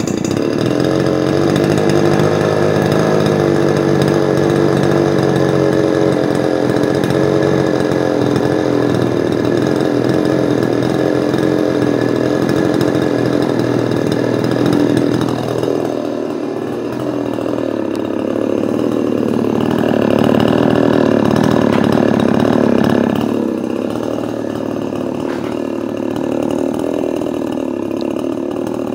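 Two-stroke chainsaw running at a steady idle. Around twenty seconds in it revs up for a few seconds, then settles back to a steady run.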